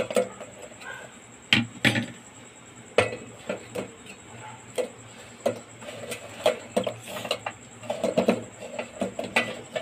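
Steel spoon and fingers clinking against a steel plate and steel pot as fried wheat-flour gulab jamuns are dropped into sugar syrup. There are a few sharp clinks in the first three seconds, then softer, irregular clattering.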